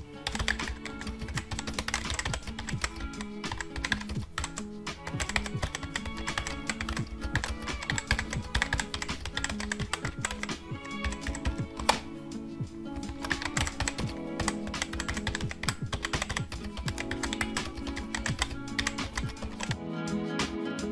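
Computer-keyboard typing clicks in a rapid, continuous stream, over background music with held tones.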